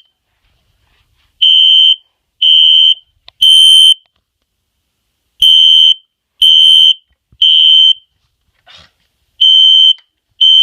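Fire alarm sounder beeping a loud, steady, high-pitched tone in groups of three half-second beeps, with a pause of about a second and a half between groups: the temporal-three evacuation signal, set off in a test of the alarm system.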